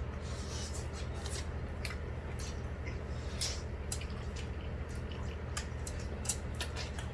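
Wet mouth sounds of eating noodles and rice cakes: scattered small clicks and smacks of chewing and slurping over a steady low hum.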